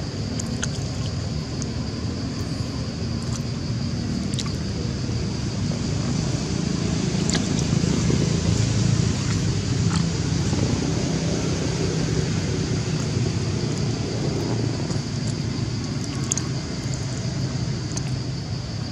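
Steady outdoor background noise: a low rumble with a constant high-pitched drone above it, swelling slightly around the middle, and a few faint clicks.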